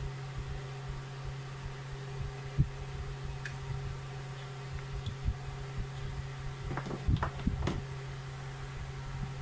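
Plastic parts of a pressure washer spray gun clicking and knocking as they are handled and pulled apart: a single sharp knock, then a quick cluster of clicks a few seconds later, over a steady low hum.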